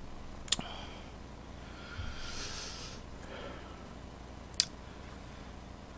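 Quiet close-up eating sounds from someone eating braised chicken with chopsticks, with two short sharp clicks, one about half a second in and one late.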